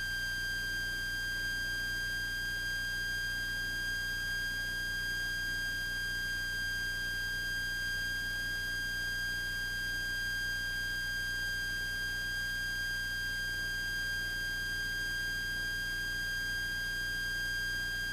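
Steady high-pitched electronic whine near 1.6 kHz with overtones and a faint low hum underneath, unchanging throughout, on the cockpit intercom recording in place of the usual radio and intercom talk.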